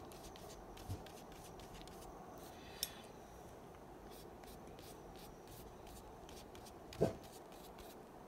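Water-soluble graphite pencil scribbling on sketchbook paper: faint, quick scratchy strokes one after another, with a brief louder thump about seven seconds in.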